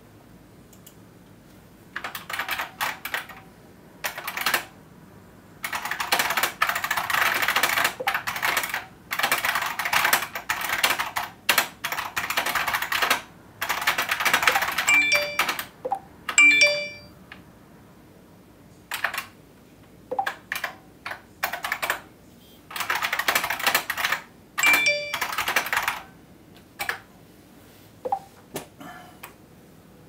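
Computer keyboard typing in irregular bursts, with a few short phone notification chimes about halfway through and again near the end of the typing.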